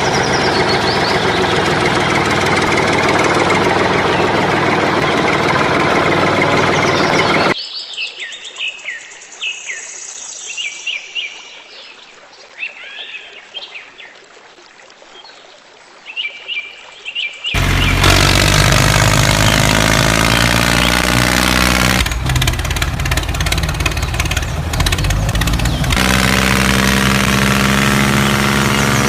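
Tractor engine running, then cut off abruptly for about ten seconds of birds chirping, then the engine running again with a low, steady pitch.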